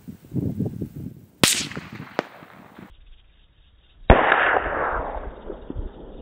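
A .308 Winchester rifle shot from a Remington 700 VLS bolt-action about a second and a half in, a sharp crack followed by a smaller crack. About four seconds in comes a louder, duller shot report with a long rolling tail.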